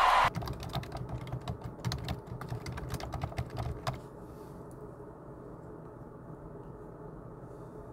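Typing on a computer keyboard: a quick, uneven run of key clicks for about four seconds, then it stops, leaving a low steady hum. A loud steady hiss cuts off just after the start.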